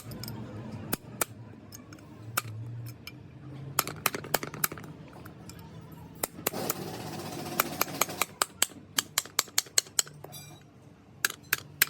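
Hand tools striking and clinking against metal truck brake parts in sharp, irregular taps, with a quicker run of taps about three or four a second near the end, over a low background murmur.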